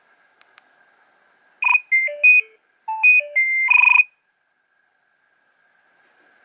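Nokia 3100 ringtone: a short electronic beep melody in two quick phrases of stepped notes, each about a second long, with a short gap between them and the last note held longest. A few faint clicks come just before it.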